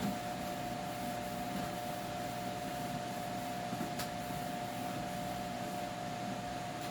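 Steady machine hum with a constant high whine running through it, and a light click about four seconds in.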